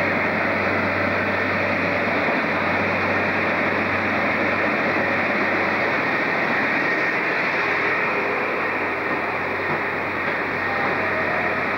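InterCity 125 High Speed Train running into the platform: the diesel engine of the leading power car drawing past, then the coaches rolling by. A steady, unbroken noise with a low hum underneath.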